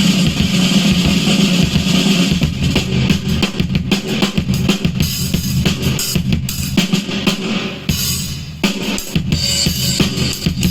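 Music with a drum-kit beat (bass drum and snare) played through a home-built amplifier, easing briefly about eight seconds in.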